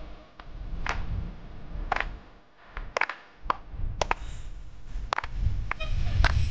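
Sharp hand claps and finger snaps keeping time for a dance, about one a second at first and coming closer together later, over a low rumble.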